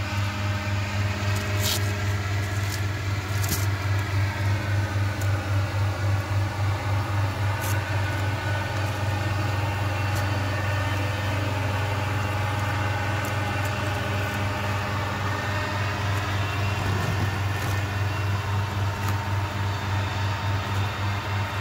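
Steady low machine hum with an even pulsing beat, like an idling motor. Several sharp clicks, mostly in the first few seconds, as the folding plastic sewer hose support is pulled open.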